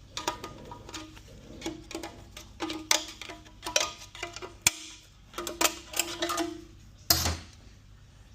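Metal transmission parts of a 6F35 automatic clinking and knocking as they are handled on the bench: irregular sharp clinks, several with a short metallic ring, and one heavier clunk about seven seconds in.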